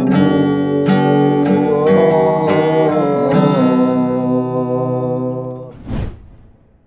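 Acoustic guitar strumming a few closing chords, the last one left to ring and fade. Near the end comes a short swelling whoosh.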